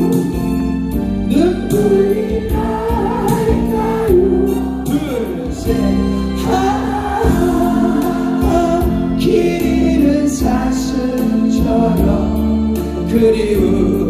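Korean ballad backing track with a group of voices singing the melody together in unison, as a sing-along class.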